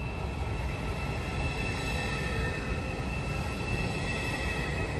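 Deutsche Bahn ICE electric train rolling slowly along a station platform: a steady rumble of wheels on rails with a high, steady whine over it.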